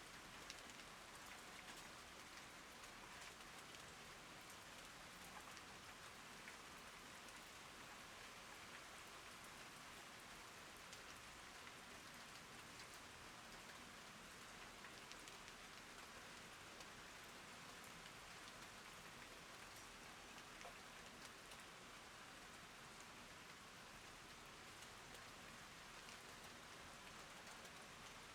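Rain falling steadily, faint, with the small ticks of individual drops landing.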